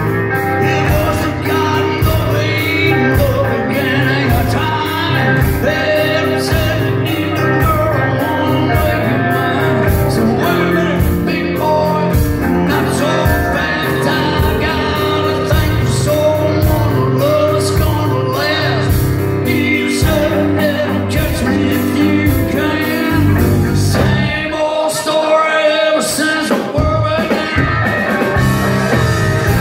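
Live rock band playing a song with male lead vocals over electric guitars and a steady drum beat, heard from the crowd. Near the end the bass and drums drop out for a couple of seconds, then come back in.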